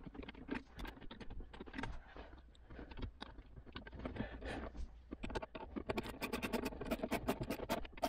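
Hands handling and pushing a plastic dashboard control unit into place, with irregular clicks and scraping of plastic trim, and a rapid run of even clicks near the end.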